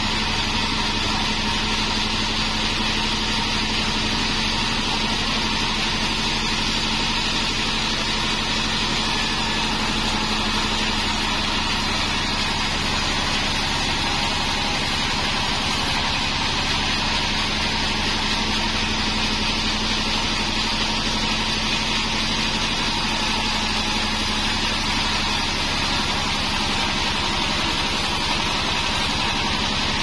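Bandsaw mill running steadily, its blade sawing lengthwise through a bayur wood log, with a constant machine hum under the cutting noise.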